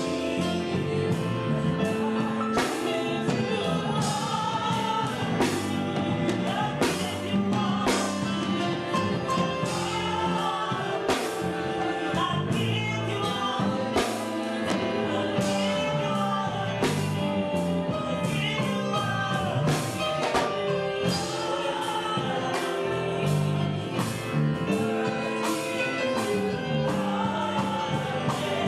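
Gospel music: singing with a choir over a band with a steady drum beat.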